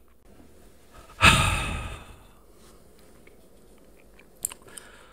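A man's heavy sigh into a close microphone about a second in, fading over most of a second. A few faint short mouth clicks come near the end.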